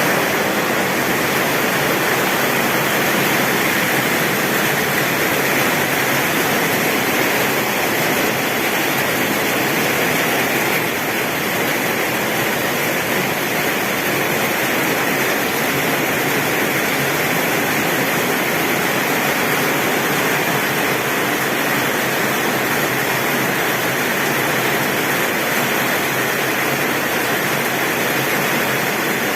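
Heavy rain falling on a tin roof: a steady, dense hiss with no thunder heard.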